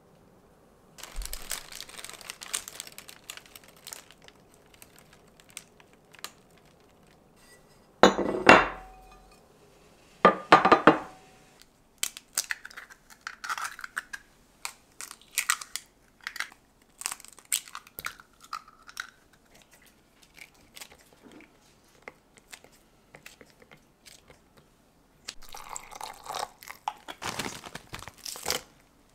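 Kitchen handling sounds around a white ceramic ramekin. Two loud knocks of ceramic dishes come at about 8 and 10 seconds, then a string of sharp clicks as eggs are cracked into the bowl and beaten. Near the end a plastic bag of frozen ingredients crinkles as it is tipped over the bowl.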